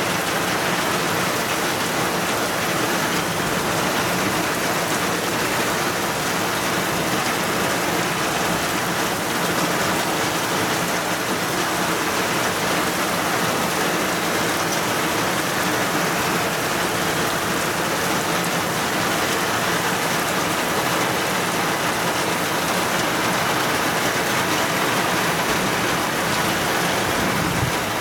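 Heavy rain pouring steadily, an even rushing hiss of downpour on trees and surfaces during a thunderstorm.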